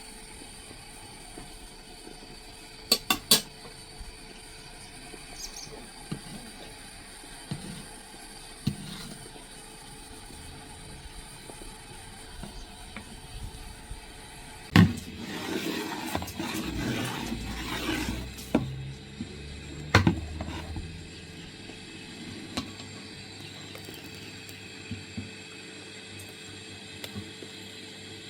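Kitchen work with cookware and utensils: a few sharp metallic clinks, a few seconds of scraping and rustling about halfway through, then more knocks.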